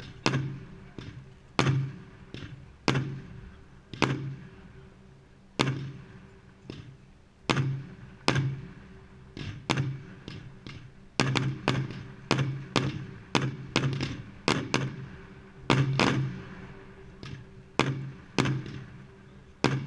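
Aerial firework shells bursting overhead: a long run of sharp bangs at uneven spacing, about one to two a second and often in quick pairs, each with a short echoing tail.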